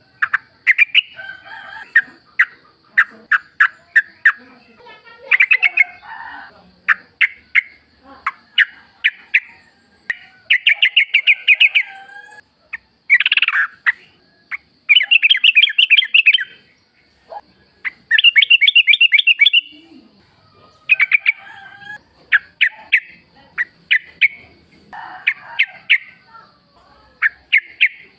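Yellow-vented bulbul (trucukan) calling in the wild: quick bubbly chattering phrases of rapid notes, one every second or two, with a faint steady high whine underneath.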